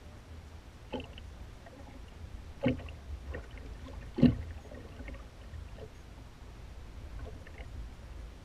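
A few sharp knocks and clunks in a small fishing boat, the loudest about four seconds in, over a steady low rumble of wind and water.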